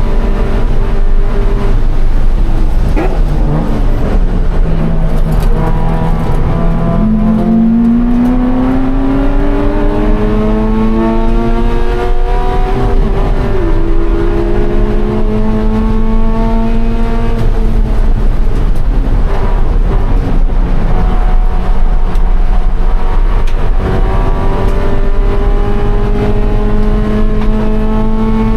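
The 2013 Scion FR-S's flat-four engine is under hard throttle, its pitch climbing through each gear and dropping sharply at each shift, several times over. A steady low rumble from the road runs underneath.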